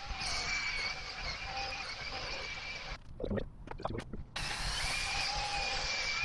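Drill spinning a buffing wheel against a bike frame, a steady whine. It stops for about a second and a half near the middle, with a few soft knocks, then starts again.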